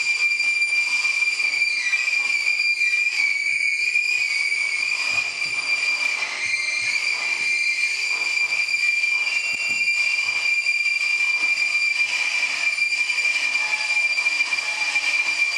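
Daxophone bowed into a sustained high squealing tone, held steady for a long time with slight wavers in pitch and fainter overtones above it.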